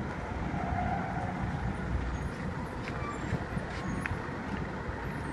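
Diesel engine of a coach bus running with a steady low rumble as the bus moves through the yard, heard muffled.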